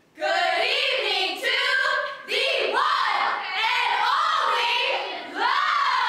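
A group of women's voices singing together in unison, coming in sharply after a hush and going on in phrases broken by short breaths.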